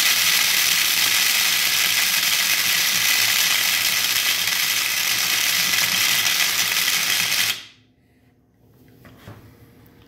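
Electric blade coffee grinder running with a load of whole dry Enogen corn kernels, a loud steady whir that cuts off about seven and a half seconds in.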